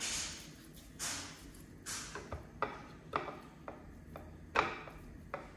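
Kitchen cookware and utensils being handled: a string of short scrapes and light clicks, about one or two a second.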